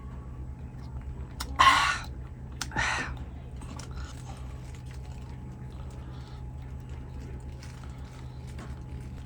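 Close-up eating sounds: a person chewing, with small wet clicks throughout. Two louder, short rushing sounds come about a second apart, near the start.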